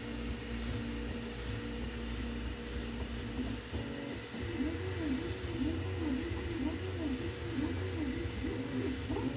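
Homemade 3D printer's stepper motors whining as the bed and print head move, held pitches at first and then rising and falling about twice a second from about halfway through as the head traces back and forth. A steady hum and tone run underneath.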